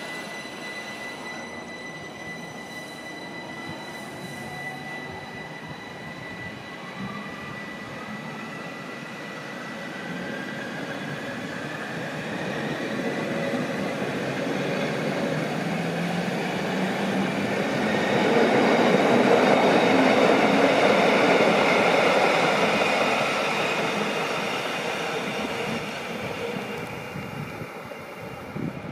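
Stadler ABe 8/12 Allegra electric railcars pulling a train away from the station: a whine rises steadily in pitch as the train accelerates, and the noise of the wheels on the rails builds to its loudest about two-thirds of the way through as the cars go by, then eases off.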